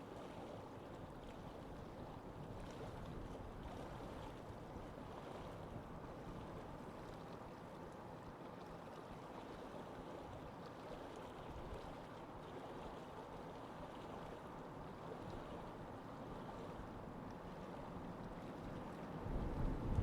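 Steady lake ambience of moving water and wind, an even noise with no distinct events. Near the end a stronger, low gust of wind hits the microphone and the sound grows louder.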